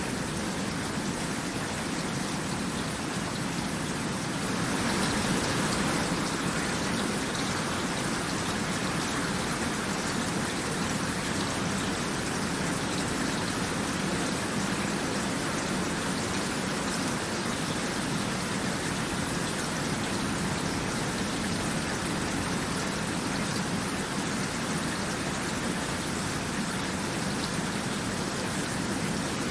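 Steady rain falling, a dense even patter of drops, growing a little heavier about five seconds in.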